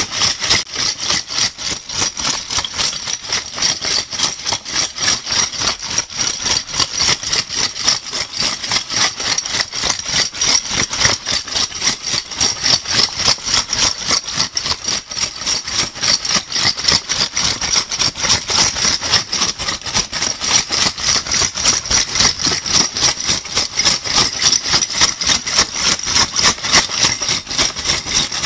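Metal crown bottle caps shaken together in a steady, rapid rhythm, a continuous bright clinking rattle.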